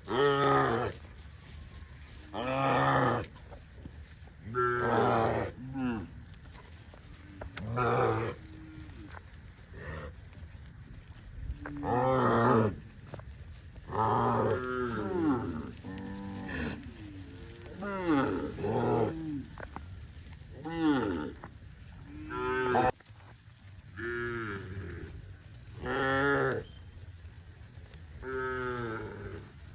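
Cows mooing again and again, about a dozen calls spaced roughly two seconds apart, many falling in pitch. Now and then two calls overlap.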